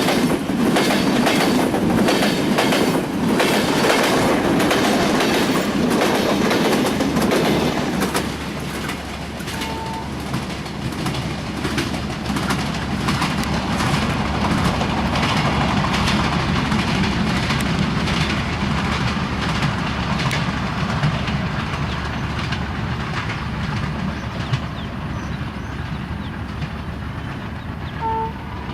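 Intercity passenger train rolling past, its wheels clicking rhythmically over the rail joints under a heavy rumble. About eight seconds in, the clicking thins out and it settles into a steadier, slightly quieter rumble.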